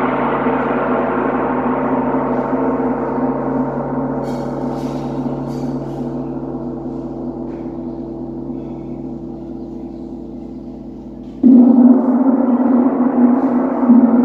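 A 100 cm handmade gong ringing on with many steady overtones, slowly fading, then struck again about eleven and a half seconds in and ringing loudly.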